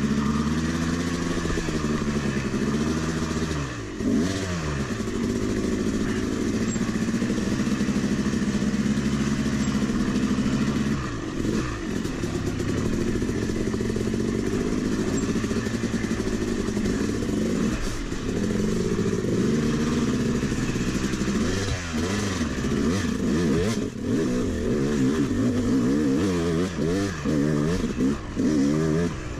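Yamaha 250 two-stroke dirt bike engine heard from on board while riding a rutted trail, its pitch rising and falling as the throttle is rolled on and off, with brief drops in level when the throttle is chopped.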